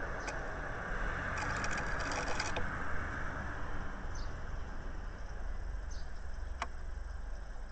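Japanese tit scratching and rustling in the cat-hair nest lining inside a wooden nest box: a flurry of scratchy clicks a little over a second in. After it come a few faint short high chirps and a single sharp click, over a steady background hiss.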